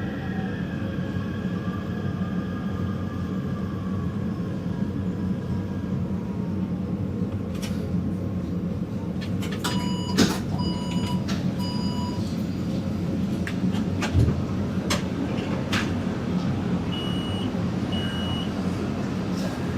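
Taipei Metro train cabin: a steady rumble, with a faint motor whine that glides and fades over the first few seconds. About ten seconds in come three short electronic beeps with some clicks and knocks, and two higher beeps follow near the end.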